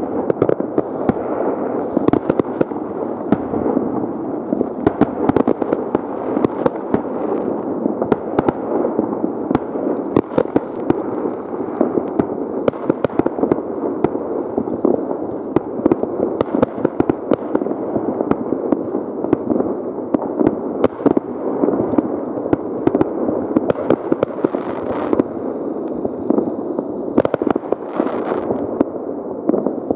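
Many fireworks and firecrackers going off at once: a continuous rumble of overlapping bangs, with many sharper cracks scattered throughout.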